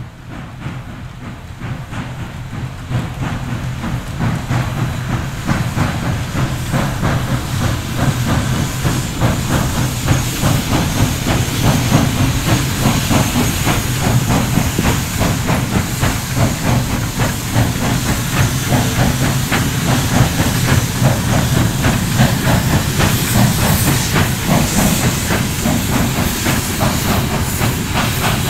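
Western Maryland 1309, a 2-6-6-2 articulated steam locomotive, pulling a freight train past: a rapid run of exhaust chuffs over steady steam hiss and a low rumble. It grows louder over the first several seconds as the locomotive approaches, then stays loud as it goes by.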